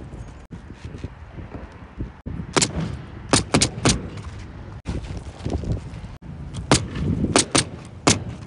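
Pneumatic roofing nailer firing nails through asphalt shingles: two quick runs of about four sharp shots each, a few seconds apart.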